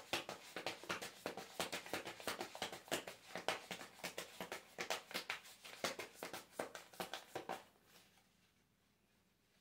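A tarot deck being shuffled hand to hand: a quick, irregular run of card slaps and flicks that stops a little before eight seconds in.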